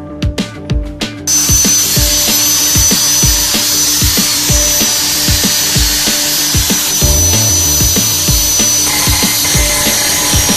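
Electric angle grinder grinding down a weld bead on a steel bumper bracket: a steady hiss with a high, constant whine that starts abruptly about a second in. Background music with a steady beat plays throughout.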